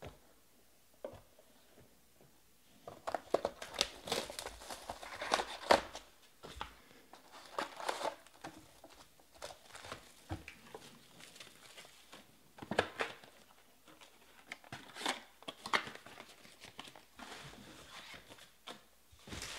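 Foil wrappers of 2020 Panini Select baseball card packs crinkling in irregular bursts, with short quiet gaps, as the packs are handled and stacked on a table.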